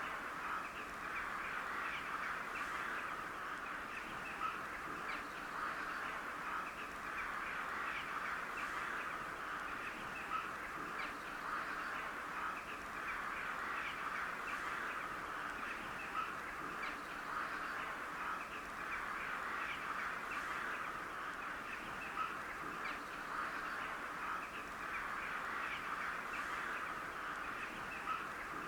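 A flock of crows calling, with many short caws overlapping continuously.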